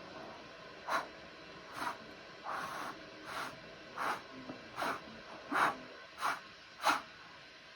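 About nine short puffs of blown air, roughly one every three-quarters of a second, blown at the center of wet acrylic paint to spread it into a bloom.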